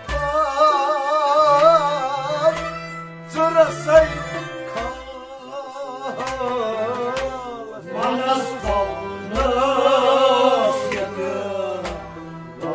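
Kashmiri Sufi devotional song: a man sings with a wavering vibrato over steady harmonium chords, with low hand-drum strokes underneath.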